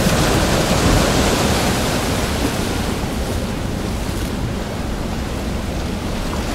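Ocean surf sound: a steady rushing noise that slowly grows quieter.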